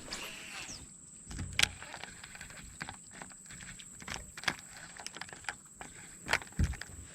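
Scattered light clicks and knocks with a couple of dull thumps, about one and a half seconds in and near the end: handling noise from gear and movement in a small jon boat.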